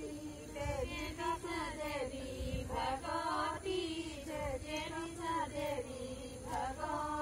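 Group of women singing a folk song together, unaccompanied, in long held lines.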